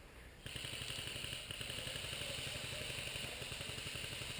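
Airsoft electric gun firing a long full-auto burst: a fast, even buzzing rattle that starts suddenly about half a second in and keeps going.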